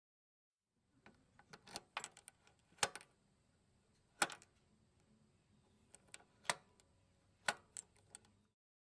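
Gun-handling sound effect: a string of sharp metallic clicks and clacks, with four louder clacks spaced a second or more apart, and no shots.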